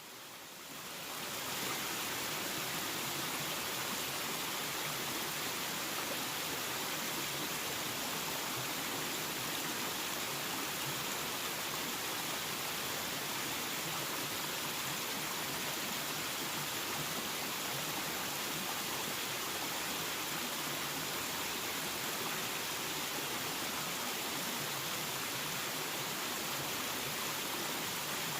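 Waterfall: water pouring and splashing in a steady, unbroken rush. It fades in over the first second or two.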